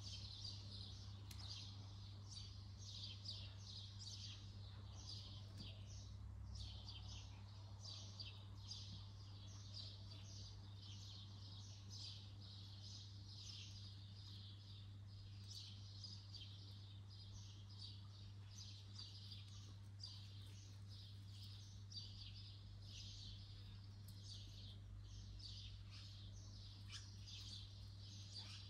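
Small birds chirping faintly and continuously, many quick high chirps each second, over a steady low hum.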